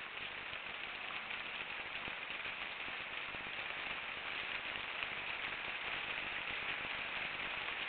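Steady hiss with no separate events, heaviest in the upper middle of the range.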